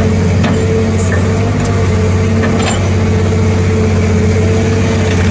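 JCB 814 excavator's diesel engine running steadily under load, a deep even drone with a steady higher hum over it; the machine is old and well worn.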